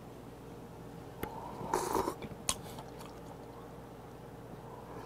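Close-up eating sounds: a short slurp of hot soup broth from a spoon about two seconds in, with a few small sharp clicks.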